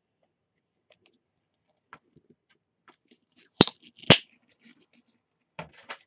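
Light clicks and taps from handling a bottle of paint as a dab of blue is put onto a plastic palette mat, with two sharp clicks about half a second apart midway and a few softer ones near the end.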